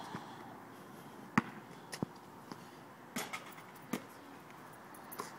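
A basketball bouncing: about six separate thumps at uneven spacing, the loudest about a second and a half in.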